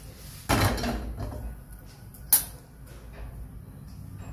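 Brief handling noises: a short scrape about half a second in, then a single sharp click just after two seconds, over a low steady hum.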